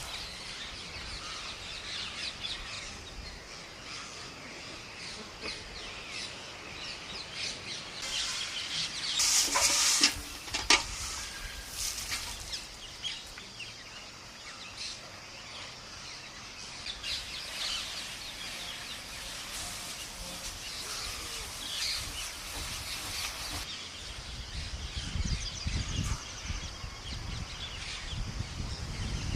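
Large flock of wild rose-ringed parakeets calling, a dense chorus of shrill chirps and squawks, louder and rougher for a couple of seconds about nine seconds in. A low rumble joins near the end.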